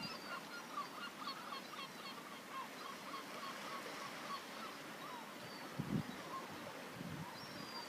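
Many birds calling at once, a dense chatter of short chirps overlapping one another, faint throughout. A brief low rumble comes about six seconds in.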